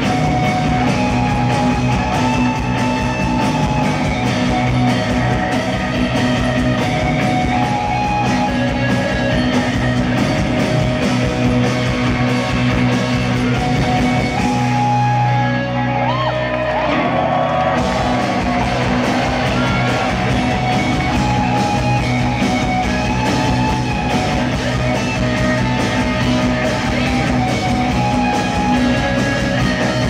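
A live rock band playing loud with electric guitars and drums. About halfway through, the cymbals and top end drop away for a few seconds and sliding tones come through before the full band returns.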